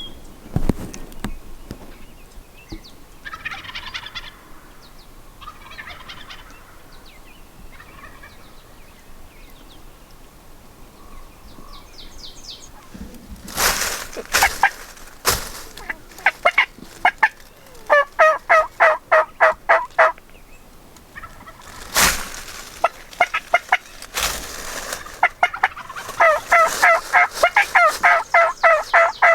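Wild turkeys calling: several loud, sharp gobbles, with long runs of rapid, evenly repeated yelping notes between them. Fainter calls sound in the first few seconds.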